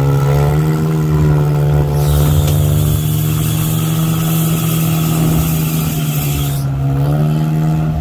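An off-road SUV's engine revved up and held at high revs for several seconds, then dropping back near the end, while one SUV pulls another out of deep mud. A hiss joins in through the middle few seconds.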